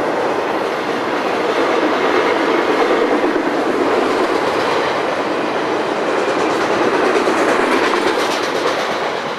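Freight train rolling past, a steady noise of wheels running on the rails.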